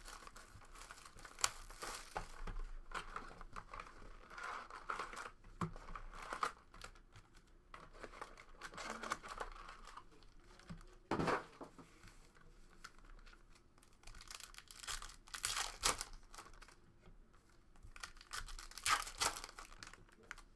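Plastic wrapping on sealed trading-card boxes and packs being torn open and crinkled by hand in irregular scratchy strokes, with a few sharper rips.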